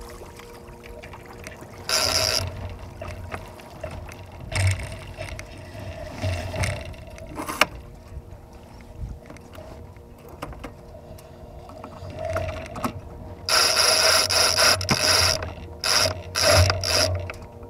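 Sailing lines being hauled in through the boat's ratcheting deck hardware: rope rasping and clicking in a series of separate pulls. The longest pull, about two seconds, comes near the end, followed by a few quick tugs.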